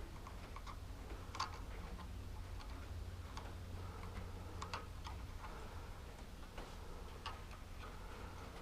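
Faint, scattered clicks and taps of hand work at a lawn tractor's carburetor as a rubber fuel line and its hose clamp are fitted onto the fuel inlet, over a low steady hum.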